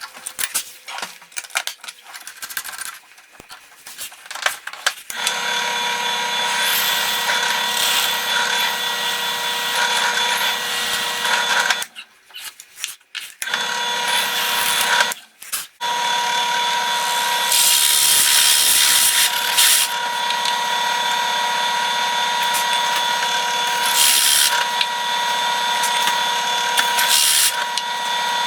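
Handling clicks, then an electric power tool starts about five seconds in and runs with a steady whine. It cuts out briefly twice near the middle, and a louder hiss rises in stretches as it cuts into wood.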